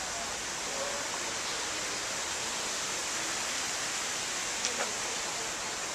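Steady rushing hiss of falling water from the exhibit's waterfall, even and unbroken.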